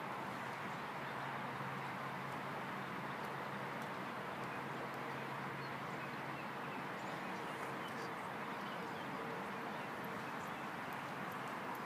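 Steady outdoor background noise, an even hiss with a faint low hum and a few faint high ticks, without any distinct event.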